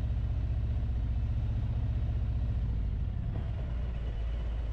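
Harley-Davidson Street Glide Special's Milwaukee-Eight 114 V-twin engine running at low road speed, a steady low rumble that drops to a lower, quieter note about three seconds in.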